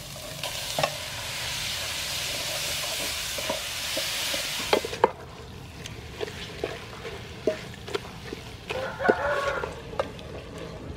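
Sliced raw beef sizzling in hot oil and paste in an aluminium pot, stirred with a wooden spoon. The sizzle dies down sharply about five seconds in, leaving the knocks and scrapes of the spoon against the pot, with a brief clatter of clinks near the end.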